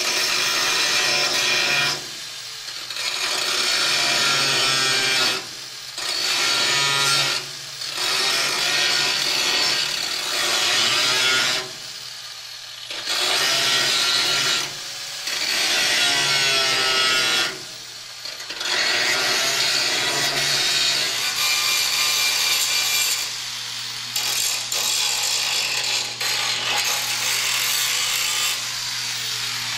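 Handheld power tool sanding rust off a bare steel car hood. It runs in repeated passes of a few seconds with short breaks, a scratchy hiss with a wavering whine, over a steady low hum.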